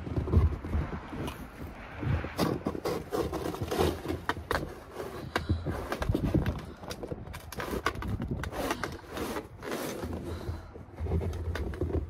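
Snow shovel scraping, scooping and tossing heavy snow, with repeated scrapes and knocks of the blade and soft thuds of falling snow.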